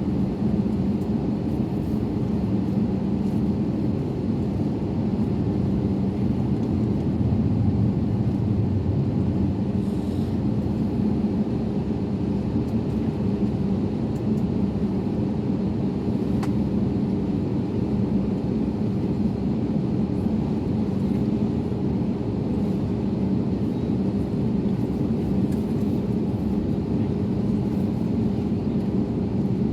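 Steady low rumble of an Airbus A321neo's jet engines, with a constant hum and no change in level.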